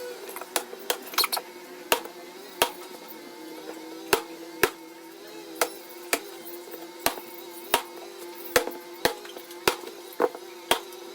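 Sharp irregular taps or clicks, about one or two a second, over a steady low hum.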